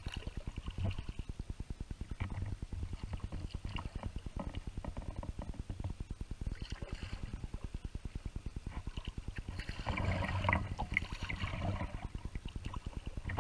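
Water lapping and rippling against the hull of a Jackson Mega Rocker whitewater kayak as it is paddled down a shallow river, with a fast, even flutter throughout. The splashing and rippling grows louder about ten seconds in.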